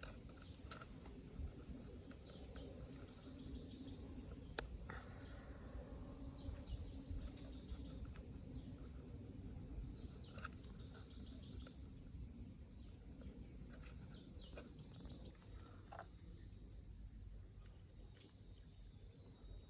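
Faint ambience of insects: a steady high drone, with a burst of chirping about every three to four seconds. A single sharp click comes about four and a half seconds in.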